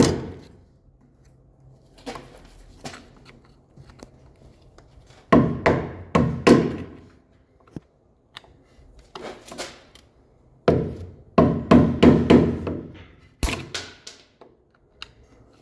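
Hammer striking a flat screwdriver driven behind a truck's front axle seal at the 4x4 front differential, to pry the seal out. The blows come in quick bursts of several strikes with short pauses between, and a single sharp crack near the end.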